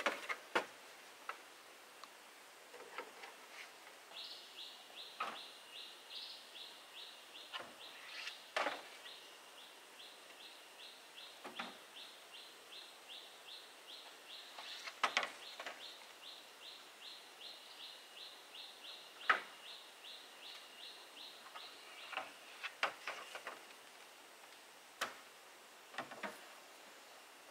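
A high chirping call repeated about three times a second, starting about four seconds in and stopping a few seconds before the end. Scattered sharp knocks and clacks of bamboo poles being handled sound over it.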